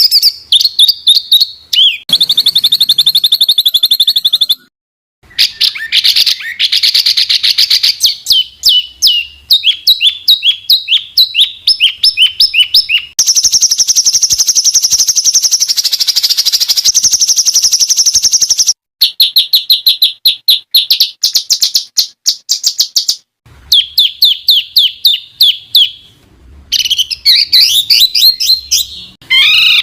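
Songbirds singing loudly in fast, dense trills and rapid runs of repeated sharp high notes, pieced together from several recordings that break off abruptly a few times with brief silences: a masteran, a tutor recording of selected birdsong used to teach caged songbirds.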